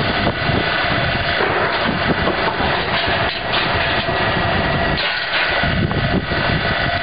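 Spindle veneer peeling lathe running as it works a log: a steady machine noise carrying several steady tones, with a dense, irregular clatter over it.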